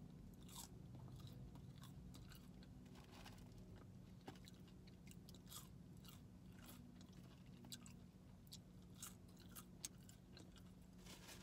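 Close-miked chewing of crinkle-cut french fries: faint, irregular crunching and mouth sounds over a low steady hum.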